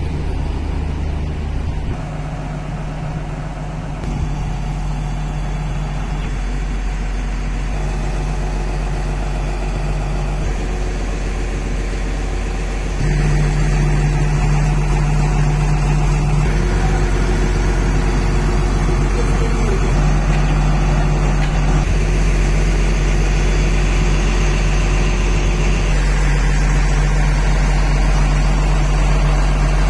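Diesel engine of a JCB 215 LC tracked excavator idling steadily with a deep hum. The sound shifts a little every few seconds and gets louder about 13 seconds in.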